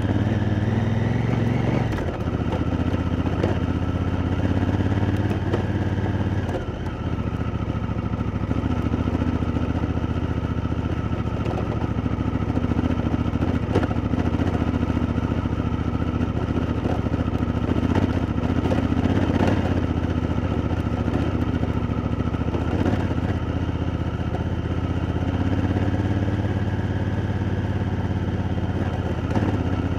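Honda Africa Twin's parallel-twin engine running at low revs as the bike rides a rough gravel track, with brief dips in the engine note about 2 and 7 seconds in. Scattered knocks and clatter come from the stony surface and the bike's chassis.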